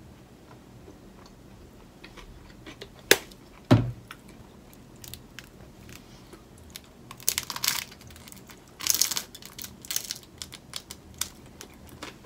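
Two sharp knocks half a second apart, then crunchy bites into toast and chewing, in several loud crackly bursts.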